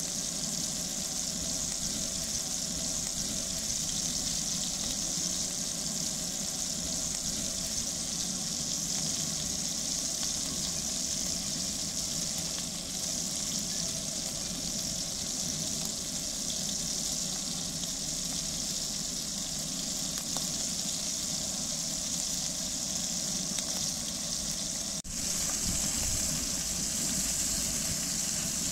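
Beef rolls frying in melted butter and oil in a cast-iron pan: a steady sizzle that briefly drops about 25 seconds in and comes back a little brighter.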